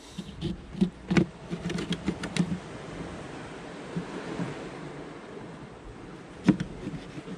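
Knife cutting a lemon on a plastic tray: a run of light knocks and taps in the first couple of seconds and one sharp click near the end, over a steady rushing background.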